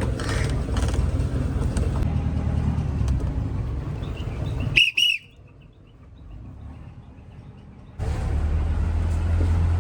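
Steady low rumble of a road vehicle in motion. About five seconds in, a short high whistling chirp sounds, and the rumble drops away abruptly. It returns about three seconds later.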